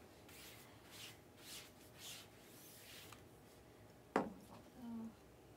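Faint rubbing and sliding of trading cards being handled on a table: several soft swishes, then a sharp tap about four seconds in.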